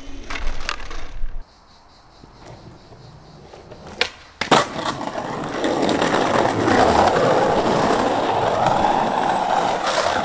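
Skateboard clattering and rolling on concrete. It cuts off suddenly about a second and a half in. After a quiet gap come a sharp click and a louder crack of the board, and then the wheels run steadily over the pavement.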